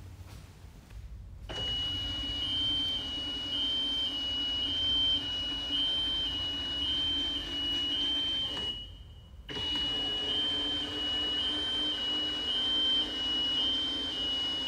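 Electric folding arch tower's actuator motor running with a steady hum, with a warning tone alternating between two pitches while it moves. It starts about a second and a half in as the tower folds down, stops briefly a little before the ninth second, then starts again as the tower raises.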